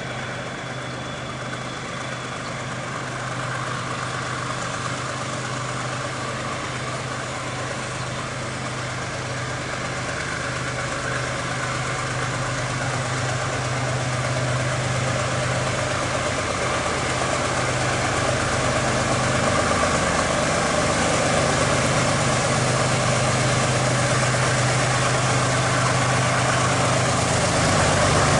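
Diesel freight locomotive engine running with a steady low hum, getting gradually louder.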